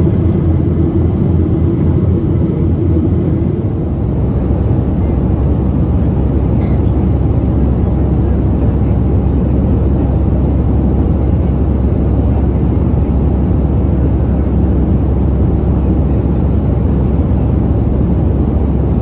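Steady, loud roar of a Boeing 737-800 in flight heard from inside the cabin: the CFM56-7B engines and the air rushing past the fuselage. The low hum shifts slightly about four seconds in.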